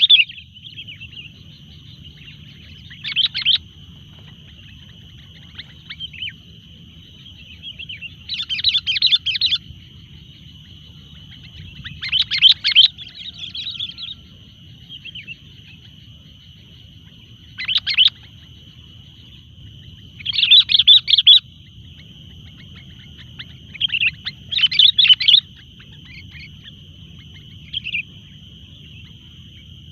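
Sooty-headed bulbul (kutilang) chirping in short bursts every few seconds, over a steady high-pitched tone.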